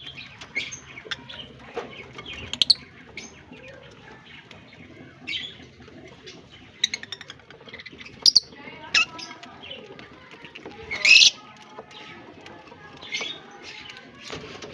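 Lovebirds chirping: short, shrill calls at irregular intervals, with the loudest call about eleven seconds in.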